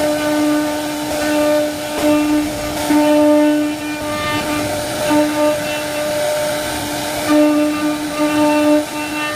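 CNC router spindle whining steadily at one pitch while cutting fluting into wood, the whine swelling and easing every second or so as the cut load changes, over a rough hiss of cutting.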